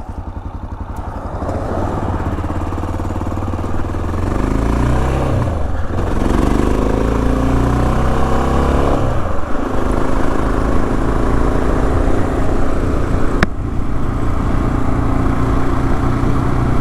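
Honda XR650L's single-cylinder engine pulling away and accelerating. Its pitch rises and drops twice at gear changes about six and nine and a half seconds in, then holds steady at cruising speed. A single sharp click sounds near the end.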